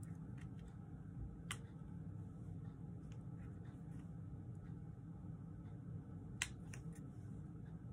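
A few faint, sharp clicks and taps of a pick-up tool's tip pressing small adhesive stars onto a cardstock card, with a cluster of three clicks about six and a half seconds in. A low steady hum sits underneath.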